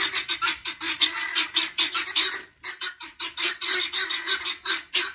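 Poultry calling in a rapid, harsh, repeated series, about four to five calls a second, with a brief break about halfway.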